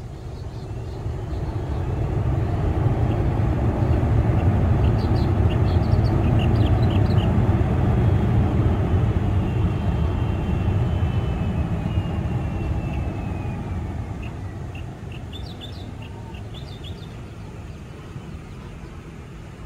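Twin turbofan engines of a Boeing 737 rolling on the runway, the jet noise swelling to a peak and then fading, with a whine gliding down in pitch as it dies away. Birds chirp briefly twice.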